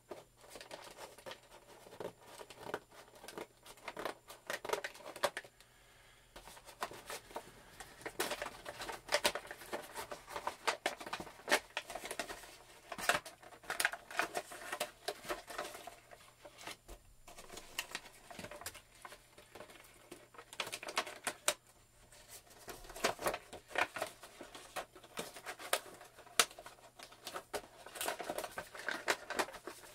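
Scissors snipping and an action figure's cardboard box and plastic packaging rustling and clicking in quick, irregular bursts as the box is cut open and unpacked.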